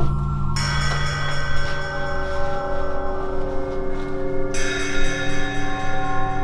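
Horror film score: sustained bell-like tones over a low drone, with the upper tones changing abruptly about half a second in and again near four and a half seconds.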